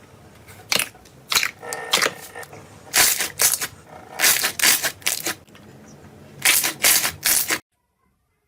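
Slime being squeezed and pressed, giving irregular clusters of sharp crackling pops and clicks. The sound stops dead near the end.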